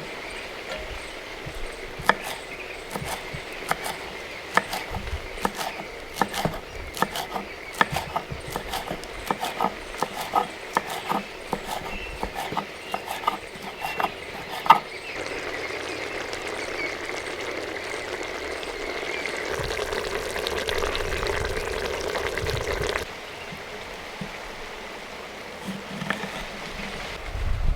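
Cooking sounds: a long run of quick clinks and taps, like a utensil working in a pot, for about fifteen seconds, then a steady hiss for about eight seconds that cuts off suddenly.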